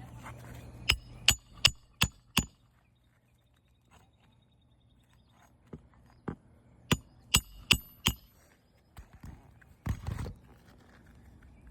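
Hammer driving roofing nails into an asphalt shingle: a run of five sharp strikes, about two and a half a second, then after a pause a second run of about six strikes.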